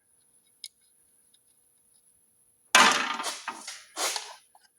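Tools and turbo parts handled on a workbench: a faint click, then a loud clatter near the end and a second, smaller one about a second later.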